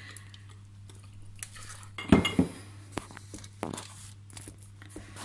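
Banana bread batter being scraped out of a glass mixing bowl into a metal loaf pan: a few separate clinks and knocks of a utensil against the bowl and pan, the loudest pair about two seconds in.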